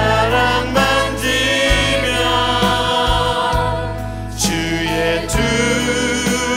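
Live worship band music: an Alleva Coppolo LG5 five-string electric bass holds long low notes that change every second or two, under singing voices and sharp drum and cymbal hits.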